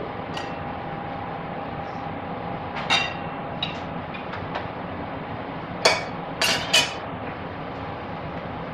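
Metal cooking utensils clinking and knocking against metal pots and bowls as a chef works: a few sharp clinks, several ringing briefly, the loudest three close together about six to seven seconds in, over a steady background rush.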